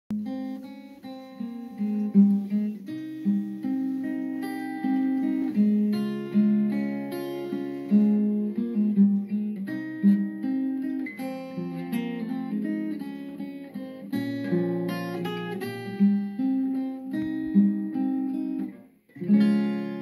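Acoustic guitar playing a slow melody in picked notes and chords. It drops out for a moment just before the end, then comes back with a strong chord.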